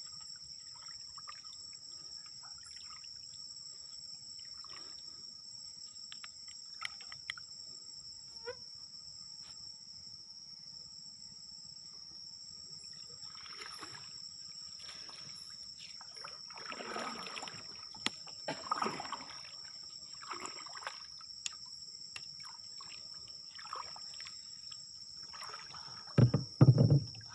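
Insects chirring steadily on two high, unbroken tones, with water splashing and dripping from about halfway as a fishing net is hauled up out of the water over the side of a wooden boat. Near the end come two loud, low thuds.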